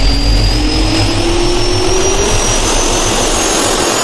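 Jet-turbine spool-up sound effect: a rising whine over a steady rushing noise, climbing slowly in pitch.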